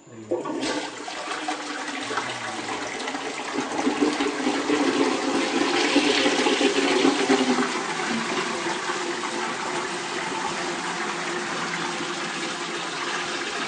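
A toilet flushing properly: the water rushes in about half a second in, is loudest a few seconds later, then settles into a steady running and refilling sound.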